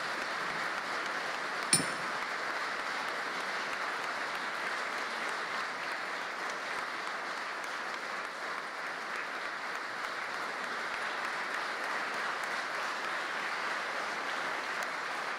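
Audience applauding steadily, with one short sharp ping about two seconds in.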